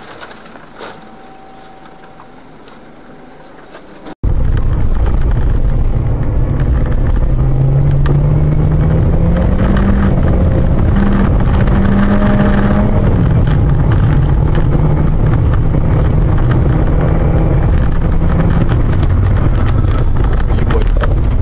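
Vehicle engine and heavy low road rumble recorded by a dash camera. A sudden cut about four seconds in makes it much louder. The engine note climbs as it accelerates, then eases back about halfway through.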